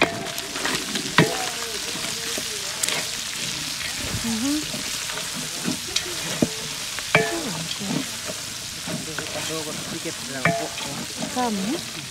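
Chopped meat sizzling in hot oil in an aluminium cooking pot, stirred with a long wooden spoon that scrapes and knocks against the pot at irregular moments. The sizzle is a steady hiss underneath.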